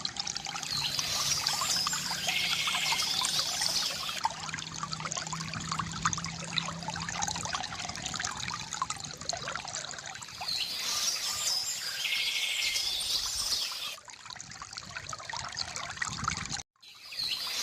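Water trickling and pouring steadily from a bamboo fountain spout, with a bird singing twice in the background. The sound cuts out for a moment near the end.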